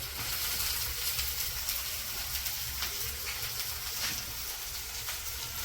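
Chopped onions frying in hot oil in a pan: a steady sizzle with small crackles.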